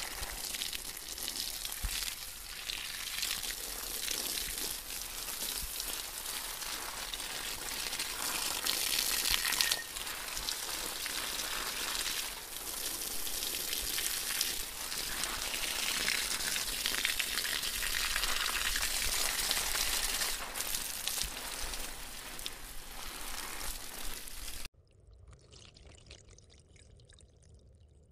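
Water spraying and splashing hard on the housing and lens of a moving-head LED stage light, a dense steady hiss. About three-quarters of the way through it cuts off suddenly to a much quieter stream of water pouring into a tub.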